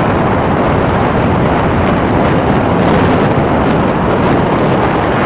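Loud, steady rushing noise of wind on the microphone and rain, from a vehicle moving along a wet road.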